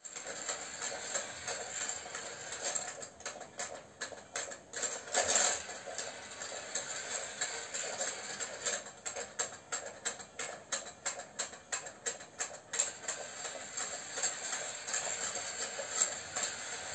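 Puppies' claws clicking and tapping on stairs: irregular quick clicks, sometimes several a second, over a faint steady hum.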